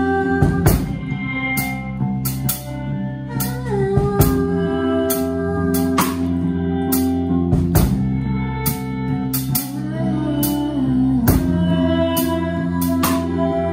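Live rock band playing: held guitar chords over drums, with frequent cymbal crashes and a few sliding notes.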